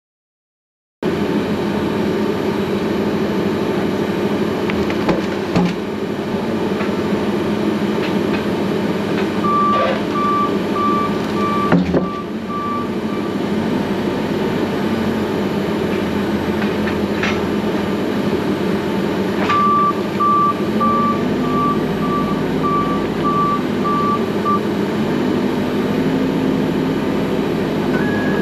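Manitou telehandler's diesel engine running and revving as it works, starting about a second in. Its reversing alarm beeps in two runs of evenly spaced beeps, about two a second, about ten seconds in and again about twenty seconds in.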